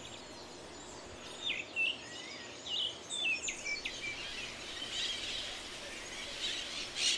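Forest bird calls: short whistled notes with sharp downward pitch drops over the first few seconds. About five seconds in these give way to the dense, high chatter of a flock of scarlet-fronted parakeets, with a louder burst near the end.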